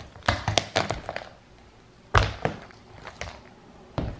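Wax birthday candles stuck in a banana snapping and crunching under a shoe on a wooden floor: a quick run of sharp cracks in the first second, more from about two seconds in, and one more near the end.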